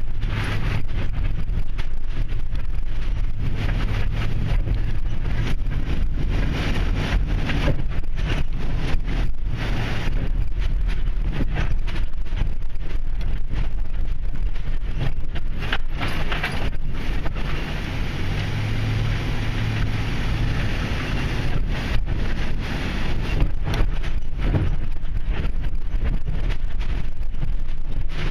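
Vehicle engine and road rumble heard from inside the cabin while driving, a steady low drone with frequent brief knocks and rattles, easing off slightly for a few seconds past the middle.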